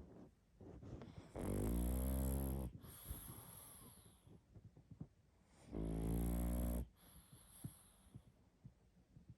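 Sleeping pug snoring: two loud, buzzy snores a little over a second each, about four seconds apart, with softer wheezy breathing between them.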